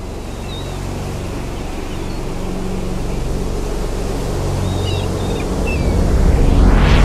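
Sound-designed sea and wind ambience: a steady rush of waves and wind over a low sustained drone, with a few faint high chirps, swelling louder near the end.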